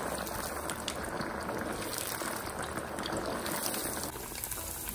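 Tofu cubes deep-frying in hot oil in a stainless steel pot: the oil bubbles and crackles steadily.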